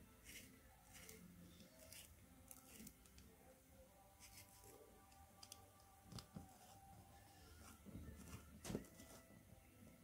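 Near silence: quiet room tone with a few faint scattered clicks and knocks, the strongest a little after eight seconds in.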